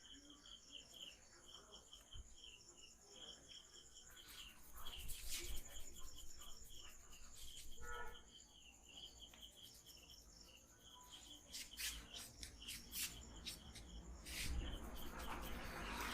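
A steady, regular high chirping, about four chirps a second, runs throughout. Scattered sharp clicks and slaps sound over it, clustered about five seconds in and again from about eleven to fifteen seconds in.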